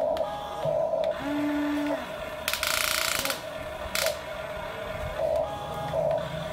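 Huina RC excavator's small electric motors whining in short bursts with gear noise as the boom, arm and cab move. A louder hiss lasts about a second near the middle.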